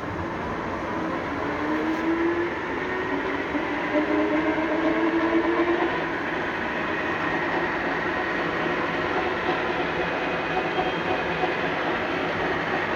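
Lansing G-20 engine lathe headstock running at high spindle speed, about 330 rpm, its geared drive whining. The whine rises in pitch and grows louder over the first six seconds as the spindle comes up to speed, then holds steady.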